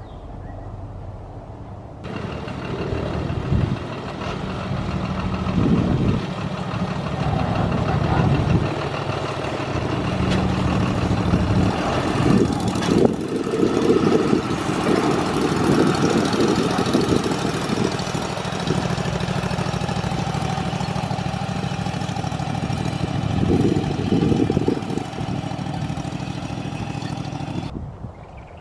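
A vehicle engine running steadily, starting abruptly about two seconds in and cutting off suddenly near the end.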